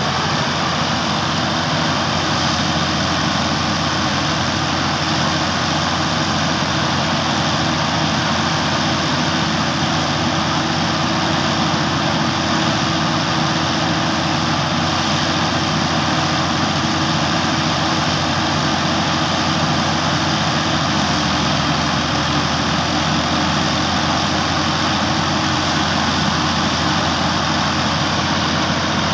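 New Holland 480 tractor's diesel engine running steadily, driving a rice thresher through its shaft, together with the thresher running as rice straw is fed into it and chaff is blown out.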